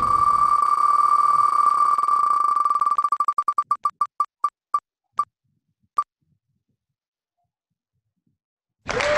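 Wheel of Names online spinner's ticking sound effect: rapid ticks blur into a steady beep, then slow down to single, spaced ticks as the wheel decelerates, the last about six seconds in. Near the end a burst of applause sound effect starts as the wheel stops on a winner.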